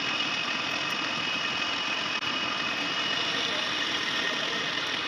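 Manual lathe running steadily during thread cutting, a continuous machine noise with a thin high whine.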